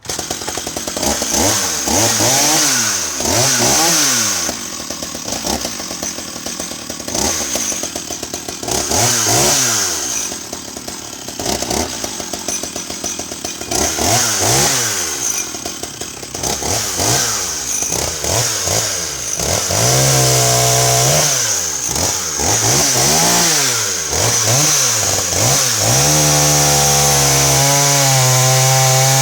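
Sachs Dolmar 102 39cc two-stroke chainsaw catching and running, revved up and down over and over, then held at steady high revs near the end. The owner thinks it runs a tiny bit rich.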